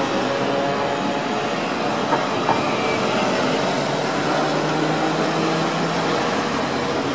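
Audi rally car's engine running steadily at low revs as the car rolls slowly past close by, with two short clicks about two seconds in.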